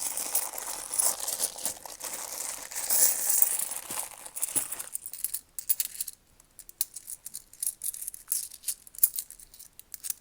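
A bag of 10p coins being handled: about five seconds of dense crinkling and rattling, then scattered sharp clicks of coins knocking together.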